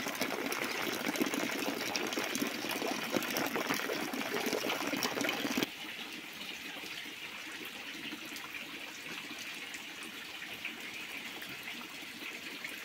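A stream of rainwater from the roof pouring and splashing into a full water tank, with rain pattering on the water's surface. About six seconds in it cuts off suddenly to a quieter, steady hiss of falling rain.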